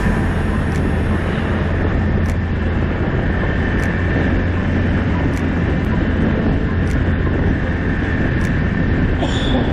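ATV engine running steadily while riding, a constant low drone with no change in pace.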